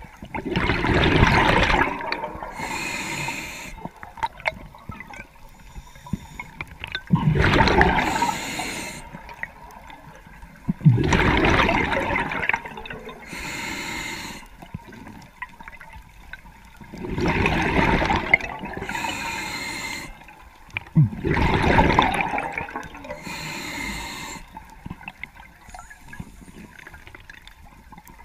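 Underwater diver breathing through a regulator: five loud bursts of exhaled bubbles a few seconds apart, with a softer hiss of inhalation between them.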